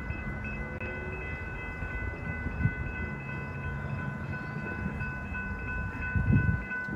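Grade-crossing warning bell ringing steadily as a Sounder commuter train approaches from a distance, with a low rumble from the train and two brief buffets of wind on the microphone.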